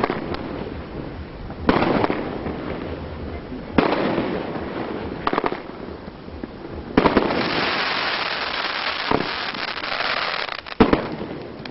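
Aerial fireworks bursting overhead: four sharp bangs two to four seconds apart, each followed by a crackling hiss that dies away. The longest tail follows the third bang.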